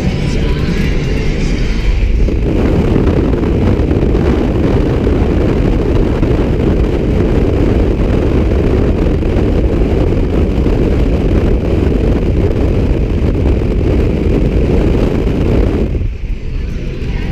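An old car driving along at speed, its engine and road noise heard under heavy wind rushing over the microphone. The sound is loud and steady, with a brief dip near the end.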